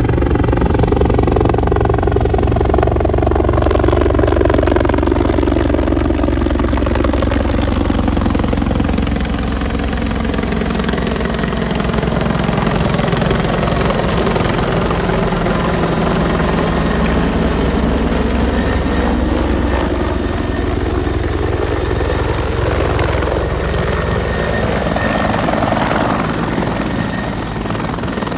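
Bell 412 helicopter, with its four-bladed main rotor and twin turbine engines, running loudly and steadily as it comes in low on its approach to land and hovers. Its pitch shifts and sweeps as it moves overhead.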